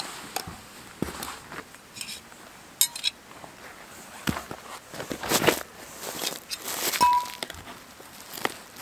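Metal tent pegs clinking against each other and against a metal hooked tool, with footsteps scuffing over dry leaf litter and pine needles in between. A few sharp metallic clinks, a stretch of rustling scuffs, then a brief ringing note.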